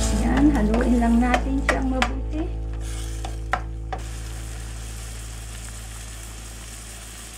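Bass fillet pieces and baby clams sizzling in a stainless steel frying pan, with a spatula stirring and scraping against the pan for the first few seconds. Background music plays over it and fades out about four seconds in, leaving the steady sizzle.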